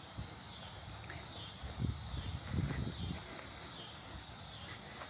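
Footsteps of a walker on a dirt trail, irregular thuds a little heavier about two to three seconds in, over the steady hiss of a swollen creek rushing nearby.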